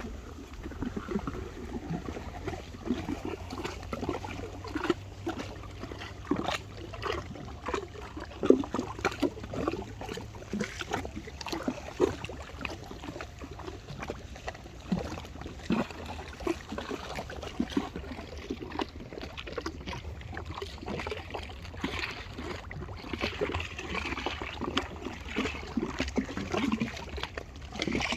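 River water splashing and trickling in small irregular splashes, over a steady low rumble.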